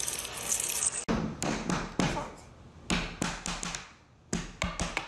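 A hand banging on a wooden tabletop, a run of irregular thumps about three a second that pause briefly near four seconds in, then carry on. Before it, about a second of steady hiss.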